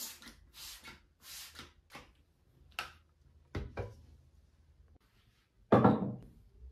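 A trigger spray bottle sprayed four times in quick succession, each a short hiss, followed by a click and a knock. Near the end comes a heavy thud, the loudest sound, as a lidded saucepan is set down on a wooden counter.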